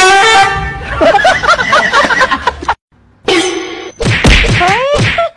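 Excited laughing and squealing in two loud stretches, broken by a short gap a little before the midpoint, with yelps that slide down in pitch near the end.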